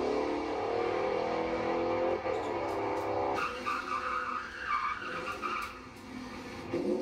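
A C4 Corvette's V8 engine running hard as the car pulls away. About three and a half seconds in, it gives way to the squeal of a Ford Mustang's rear tyres spinning in a burnout.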